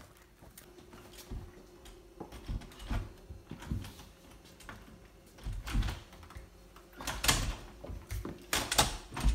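A door being worked by hand: clicks, rattles and knocks from its latch and handle, with some low thumps, growing louder and busier in the second half.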